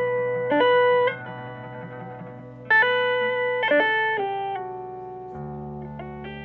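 Background music: single plucked notes ringing out one after another over a low held tone, which steps to a new pitch about five seconds in.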